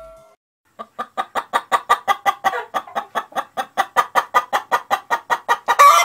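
A hen clucking in a fast, even run of short clucks, about five a second, ending in a louder call that rises in pitch: a hen's cackle.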